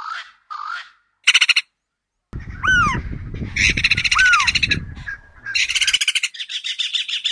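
Swainson's spurfowl giving short harsh grating calls, then a louder rattling burst. After a brief gap, a great spotted cuckoo's loud harsh rattling chatter with two rising-and-falling whistled notes, over a low rumble.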